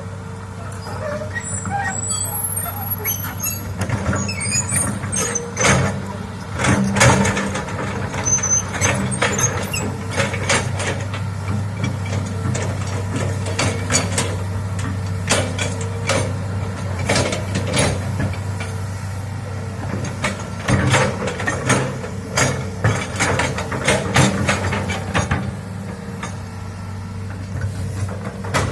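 Hitachi hydraulic excavator's diesel engine running steadily under working load, with many sharp knocks and clanks from the machine at work, coming in clusters.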